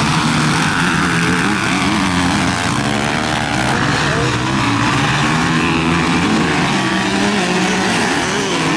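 Several motocross bikes racing in a group, their engines revving, the pitch rising and falling as the riders work the throttle.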